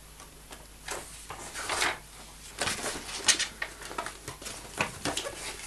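Pages of a book being turned and handled: a series of short papery rustles and flicks.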